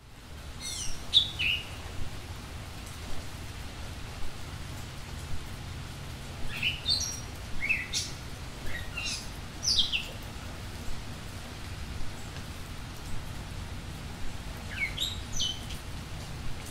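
Small birds chirping: quick runs of short notes that slide downward, in three spells (at the start, in the middle and near the end), over a steady low rumble.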